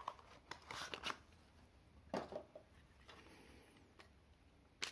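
Faint handling of a cardboard box as the plastic Raspberry Pi 5 case is slid out of it: soft rustles and light taps, a louder scrape about two seconds in, and a sharp click near the end.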